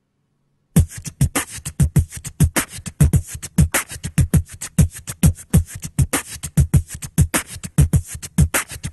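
Beatboxing into a microphone: a fast, steady beat starting just under a second in. Deep vocal kick drums drop in pitch, with crisp hi-hat and snare sounds between them.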